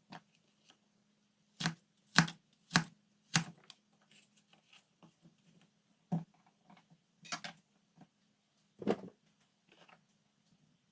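Food and lunchbox containers being handled while a lunchbox is packed: about seven sharp clicks and knocks, irregularly spaced, over a faint steady low hum.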